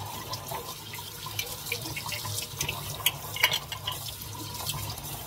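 Kitchen faucet running into a stainless steel sink, with small splashes as hands rinse a wet puppy in the water.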